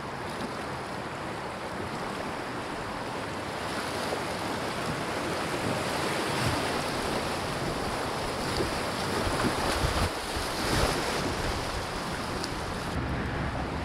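Fast river current rushing through a rocky riffle around a kayak, louder in the middle as the kayak passes through the whitewater, with wind buffeting the microphone.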